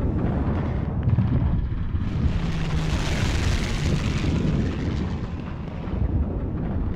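Battle sound effects for a war film: a continuous low rumble with a rushing swell that builds and fades between about two and five seconds in.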